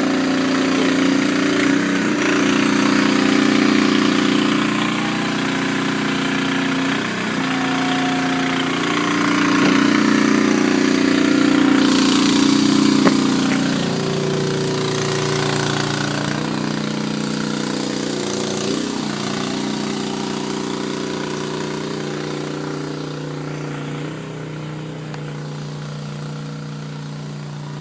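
An engine powering trenchless sewer equipment runs steadily, its note dipping briefly every few seconds and settling lower and a little quieter about halfway through.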